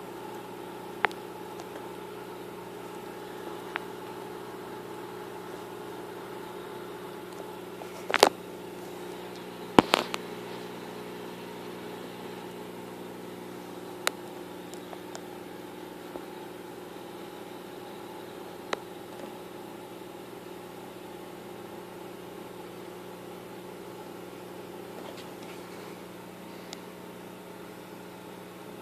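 Steady low electrical hum from running aquarium equipment, broken by a few brief sharp clicks, the loudest a small cluster about a third of the way in.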